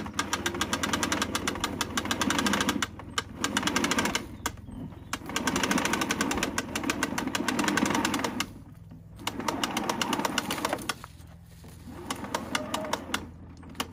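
Aldi Gardenline spring-loaded retractable hose reel winding its hose back in. Its mechanism clicks rapidly over a low whirr, in several runs separated by brief pauses, under a powerful spring.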